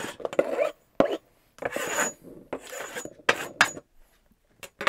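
A metal blade scraping and chopping oil-bonded casting sand on a wooden board: several short scraping strokes, with a sharp knock about a second in.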